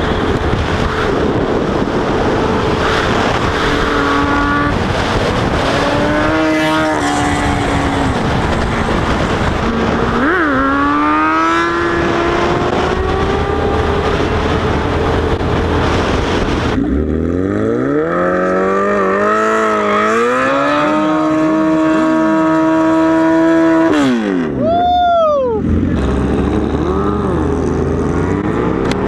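Sport motorcycle engines revving under acceleration, the pitch climbing and then dropping at each gear change, under heavy wind rush on the microphone. Past the middle the wind eases, leaving an engine note that rises and then holds steady, followed by a quick falling sweep near the end.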